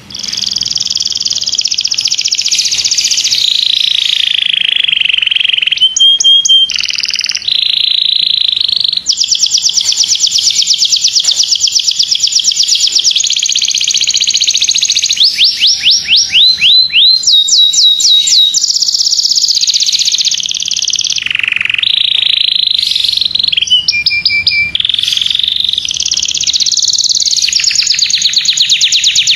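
Domestic canary singing a long, unbroken, high-pitched song of trills and rolls. Several stretches are very fast runs of repeated notes.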